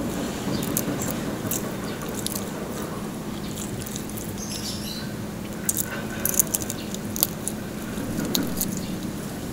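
Close-miked eating of crispy pata (deep-fried pork knuckle): crackly crunching and wet chewing and smacking as the fried skin and meat are bitten and chewed, loudest in a short cluster of sharp crunches a little past halfway. A steady low hum sits underneath.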